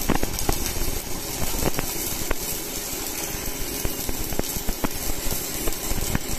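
Stick-welding arc crackling and sizzling steadily, with frequent sharp pops, as a 12-number electrode burns on thin steel pipe. The current is turned down for the thin metal.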